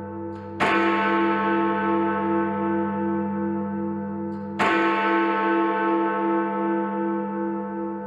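Big Ben, the Great Bell of the Palace of Westminster, striking the hour: two strokes about four seconds apart, each ringing on in a long hum that throbs slowly.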